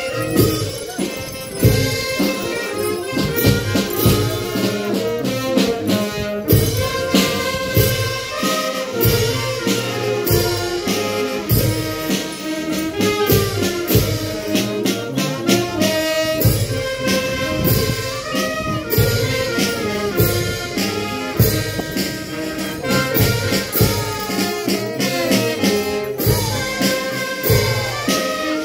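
Live band music for a negrería dance: brass and saxophone playing the tune over a steady beat of percussive strokes.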